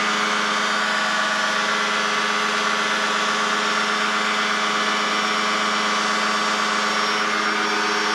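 Challenger II ultralight's fan-cooled two-stroke engine and propeller running steadily at climb power: a constant, unchanging drone with a rush of air.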